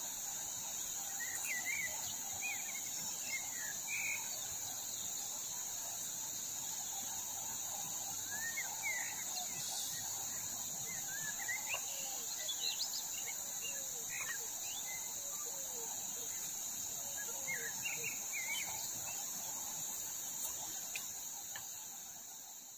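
Steady high-pitched drone of insects, with scattered short chirping bird calls throughout and a low rush of river water underneath. It fades out at the very end.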